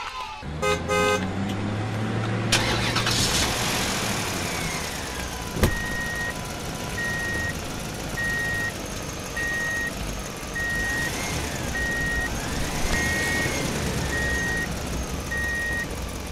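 Motor vehicle sound effect: a steady engine rumble with a high electronic beep repeating about once every second, like a truck's reversing alarm. A few short horn-like toots sound about a second in.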